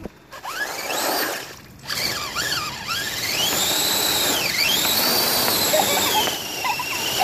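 Brushless electric motor of an RC crawler truck whining as it revs up and down, the pitch rising and falling with the throttle while the tyres spin in mud. It lets off briefly twice in the first two seconds.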